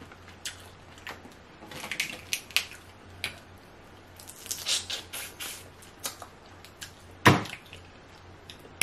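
Close-up eating sounds of a saucy seafood boil: wet chewing and squishing with scattered small clicks, and one loud sharp crack about seven seconds in as shell is broken apart by hand.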